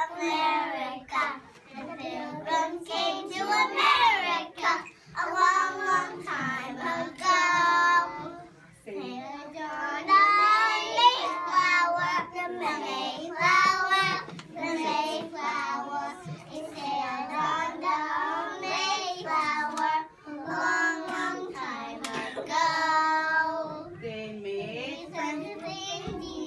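A group of three- and four-year-old children singing a song together, in sung lines with brief pauses between them.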